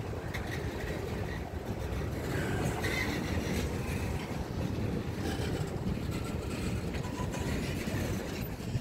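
Norfolk Southern freight train's boxcars rolling past: a steady rumble of steel wheels on the rails.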